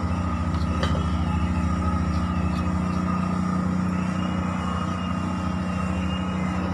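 A motor running steadily: a low, even drone with a fast pulse, joined by a faint high tone in the second half.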